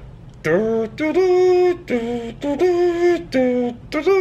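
A man voicing a slow, mournful tune in about six long held notes that step up and down with short breaks. It is a joke lament, as if the drone were dead.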